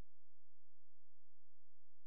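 A steady low hum, unchanging, with no other sound.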